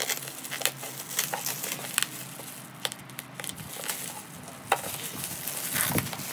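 Bubble wrap crinkling as it is slit open with a box cutter and pulled apart, with many irregular sharp crackles.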